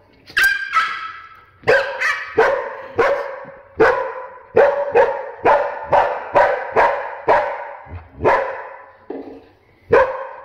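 A dog barking over and over in a quick run of sharp, high-pitched barks, about two a second, with a short break near the end.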